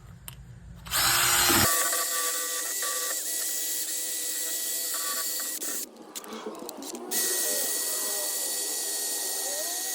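Power tool spinning a wire brush, scouring rust off the hub mounting surface on the rear axle. It runs steadily for about five seconds, stops briefly, then runs again for the last few seconds.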